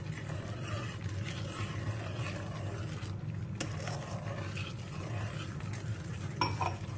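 A metal spoon stirring and scraping wet semolina halwa mixture in a steel kadai as sugar is poured in, with small clinks of spoon against pan. A steady low hum runs underneath.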